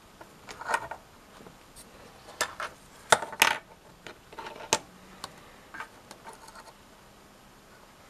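Light clicks, taps and scrapes of small plastic PCB power relays being handled and set down on a workbench. About a dozen scattered, irregular knocks, the sharpest a little after three seconds in.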